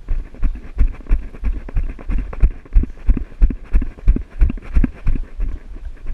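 Running footsteps, about three steps a second, each a low thud close to the microphone.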